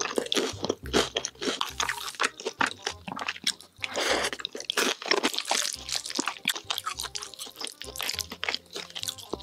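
Close-miked crunching and chewing of crispy fried dumplings, a fast run of crisp crunches from the mouth.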